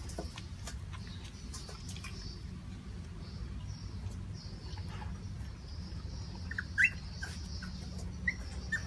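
Eight-day-old Siberian husky puppies squeaking: a few short, high squeaks about two-thirds of the way in, the loudest rising in pitch, then two more near the end, over a steady low rumble.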